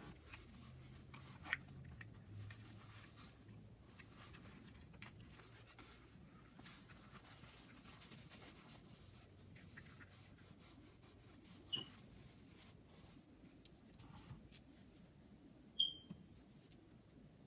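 Faint rubbing and rustling of hands handling tarot cards and their packaging, with a few sharp clicks and taps; the loudest, near the end, carries a brief bright ping.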